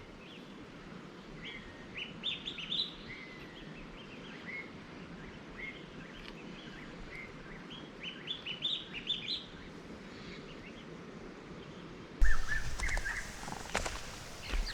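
Small birds chirping in two bouts of quick, rising notes, the second about eight seconds in. About twelve seconds in, a sudden louder noise with a low rumble starts and carries on to the end, with a few more chirps over it.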